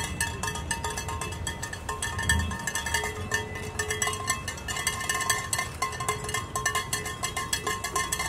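Fast, continuous metallic clinking and ringing of shaken noisemakers, with short held tones, over the low rumble of cars driving slowly past.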